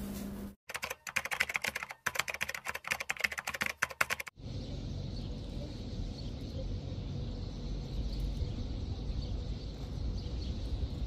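Crinkling of a flower bouquet's paper and plastic wrapping as it is pulled off the stems, a dense run of crackles lasting about four seconds. It then gives way abruptly to a steady outdoor background of low rumble and hiss.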